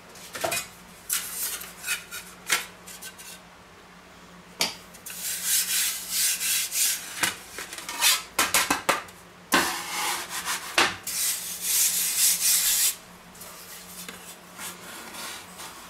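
Hands rubbing and spreading flour over metal pizza peels, heard as gritty scraping in two stretches of a few seconds each. A few sharp knocks come earlier, where the peels are set down on a wooden cutting board.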